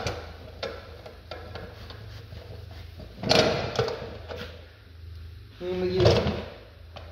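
Rag rubbing metal polish onto a weathered aluminum truck wheel by hand: intermittent scrubbing and wiping noises, loudest about three seconds in and again near six seconds, over a steady low hum.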